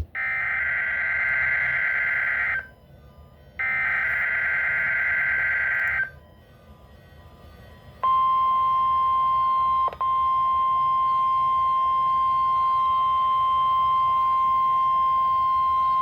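NOAA Weather Radio Specific Area Message Encoding (SAME) header data bursts, two of about two and a half seconds each with a one-second gap. About eight seconds in, the steady 1050 Hz weather alert tone starts, with a brief break near ten seconds. It is the signal of an Emergency Alert System required weekly test.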